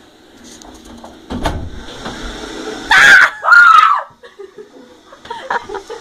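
A person screaming in fright: two loud, high shrieks about three seconds in, after a low thump about a second and a half in.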